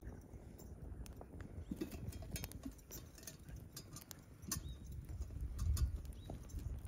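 Wood campfire crackling, with irregular sharp pops over a low rumble.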